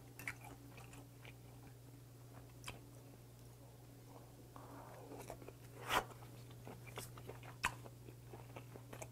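Close-up mouth sounds of eating raw pen shell adductor (keyjogae gwanja) sashimi: soft chewing with a few short sharp clicks, the loudest about six seconds in. A steady low hum sits underneath.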